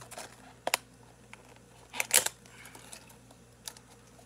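Crankbait package being opened by hand: scattered clicks and crinkling of the packaging, with one short loud rustle about two seconds in.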